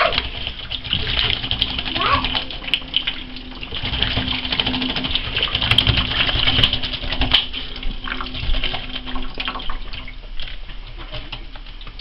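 Water from a kitchen faucet running and splashing in a stainless steel sink as a small bird bathes in it, with many quick splashes. It thins out near the end.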